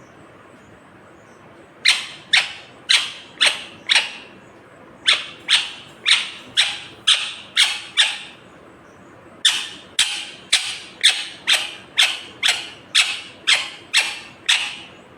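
Rose-ringed (ringneck) parakeet giving short, sharp screeching calls in three runs, about two calls a second: five calls, a brief pause, seven more, another pause, then a longer run of about eleven.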